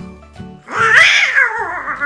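A Donald Duck-style duck voice imitating a horse's whinny: one wavering, high, squawky call starting just under a second in, over upbeat pop background music.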